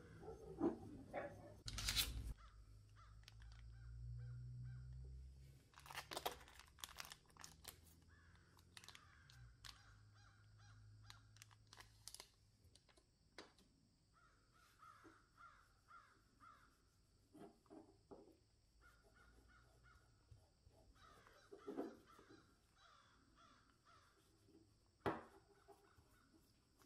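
Near silence with faint clicks and rustles of gloved hands handling and polishing a small metal airgun part. A sharp click comes about two seconds in and another near the end, with a run of small clicks around six to eight seconds in.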